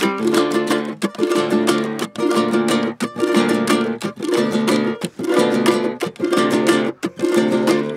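Kamaka ukulele and acoustic guitar strumming chords together in a fast, driving rhythm with sharp accents.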